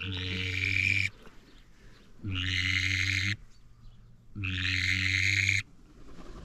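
A hunter's duck call blown in long, even notes, each about a second long, repeated about every two seconds.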